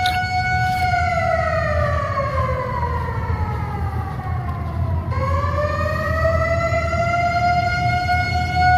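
Siren-like wail: one pitched tone that holds, slides slowly down for about four seconds, then rises again about five seconds in and holds, over a steady low rumble.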